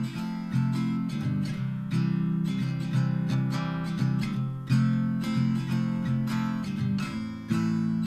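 Background music: a strummed acoustic guitar playing chords, with a fresh strum about every half second.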